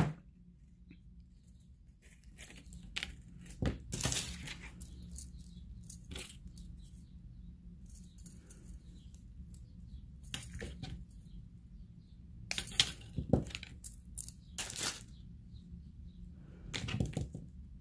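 Aluminium craft wire and metal jewellery pliers being handled on a tabletop: scattered short clicks and taps every second or so, with a sharp click at the start, over a low steady hum.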